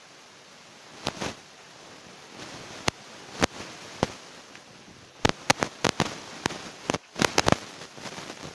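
A series of sharp, irregular clicks and cracks over a faint steady hiss. A couple come in the first few seconds, then many follow in quick succession from about five to seven and a half seconds in.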